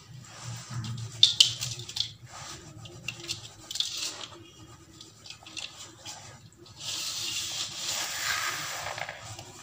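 Damp, gritty sand-cement mix crumbled and rubbed between the hands: grainy crunching and scraping with sharp crackles about a second in and again near four seconds. Near the end comes a louder, steadier gritty rush lasting about two seconds.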